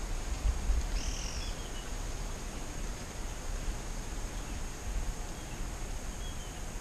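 Outdoor scrubland ambience: a steady high insect buzz with a short bird call about a second in and a few faint chirps later, over low wind rumble on the microphone.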